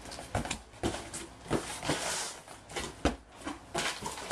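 A large cardboard box being opened by hand: cardboard flaps knocked and scraped, and crumpled brown packing paper rustling and crinkling. A run of short knocks and rustles, with a sharper knock about three seconds in.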